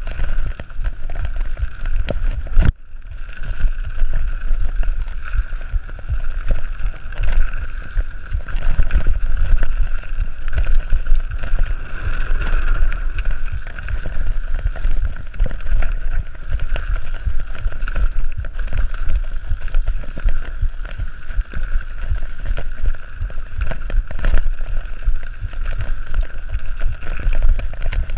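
Wind buffeting the microphone of a camera riding on a mountain bike at speed down a dirt trail, mixed with the constant rattle of the bike and tyres over roots and ruts. The noise dips briefly about three seconds in.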